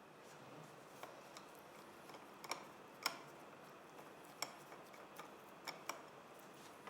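A dozen or so faint, irregular clicks and taps of plastic and metal parts being handled as an intensive-care ventilator is disassembled, its water trap taken off so an inner section can be slid out.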